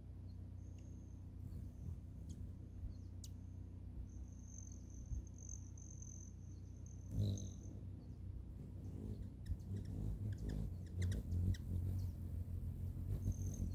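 Hummingbirds at a nectar feeder: scattered sharp chip notes that turn busier from about nine seconds in, when a second bird hovers in with a low wing hum. Underneath, a thin high buzz comes and goes.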